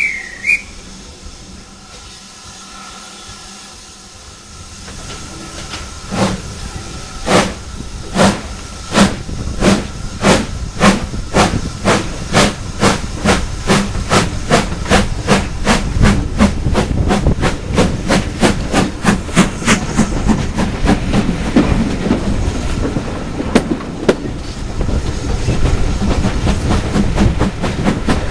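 Steam locomotive pulling a passenger train away from a station, heard from a carriage: a short whistle right at the start, then, about six seconds in, exhaust chuffs begin, slow at first and quickening steadily into a fast rhythm over a steady hiss and the growing rumble of the carriages on the rails.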